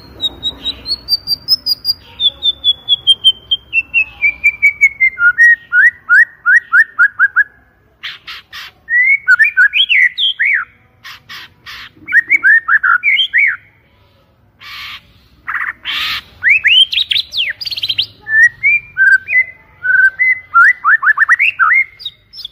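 White-rumped shama (murai batu) singing: a long run of rapid whistled notes that falls steadily in pitch, then loud harsh rasping notes mixed with fast whistled phrases that sweep up and down.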